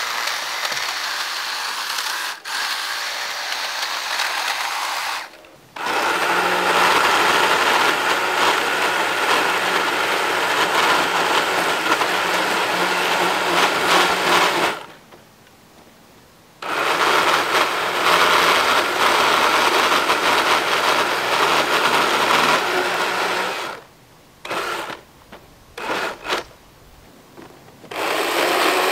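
Electric pole saw running in long spells as it cuts poison ivy vines at the base of a tree trunk. The motor stops dead for about two seconds midway, gives a few short bursts later on, and starts again near the end.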